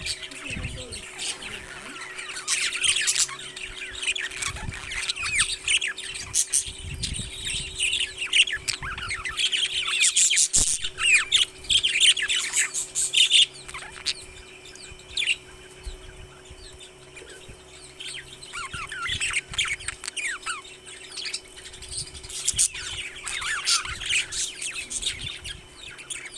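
Parrots chirping and chattering in many short, high calls that come in clusters.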